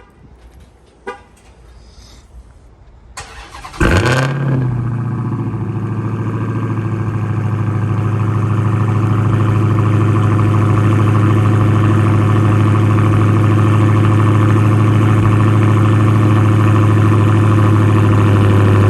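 Cold start of a Dodge Hellcat's supercharged 6.2-litre Hemi V8: a couple of clicks, a brief crank, then it catches with a loud burst of revs about four seconds in and settles into a steady idle.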